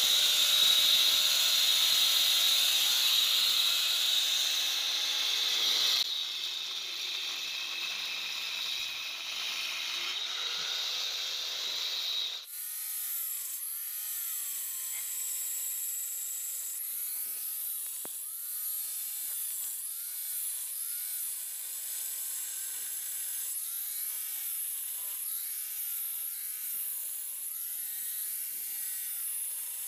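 An angle grinder fitted with two parallel blades cutting a twin-line chase into a brick and plaster wall. It is loudest for the first few seconds. After abrupt drops about six and twelve seconds in, its pitch rises and falls about once a second as the blades are worked through the wall.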